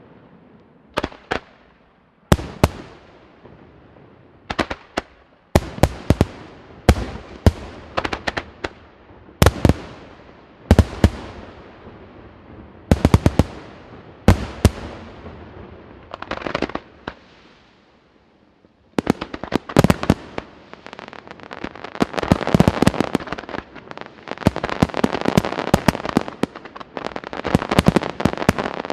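Aerial firework shells bursting: separate loud bangs every second or so, each trailing off, then after a short lull a dense barrage of rapid bangs and crackling over the last third.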